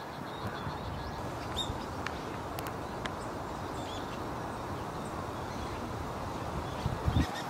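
Outdoor woodland ambience: a steady background noise with a few faint, short bird chirps, and a couple of low thumps near the end.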